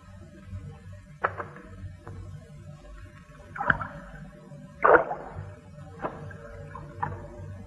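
Low, steady background film music with about six short sharp hits at irregular intervals, roughly one a second; the loudest two come about four and five seconds in.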